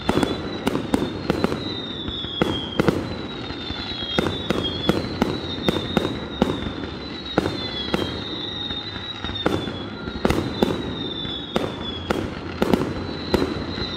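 Fireworks going off in rapid succession: many sharp bangs and crackles, with short high whistles that fall in pitch every second or two.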